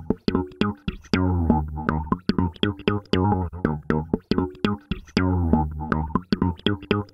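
Background music: plucked bass and guitar notes over a regular beat.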